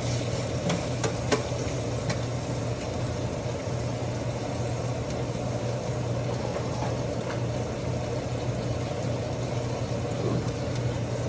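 Pot of mutton pulao cooking on the stove: a steady frying sizzle over a constant low hum, with a few utensil clicks against the pot in the first two seconds.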